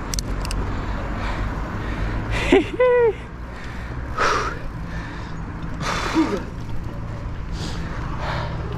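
A cyclist breathing hard while pedalling: loud gasping breaths about every second and a half, with a short voiced gasp about three seconds in. Low wind rumble on the microphone from the ride runs under it.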